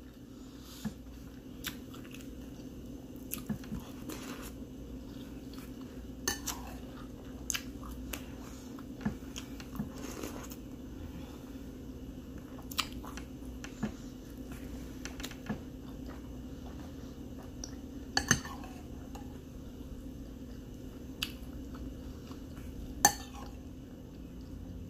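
A metal spoon clinking and scraping against a ceramic cereal bowl every second or two, with chewing of cereal and milk in between. A steady low hum runs underneath.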